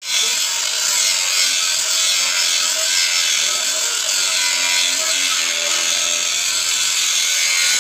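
Handheld angle grinder with an abrasive cut-off disc cutting through a steel pipe section: a steady, loud, high-pitched grinding that holds without a break.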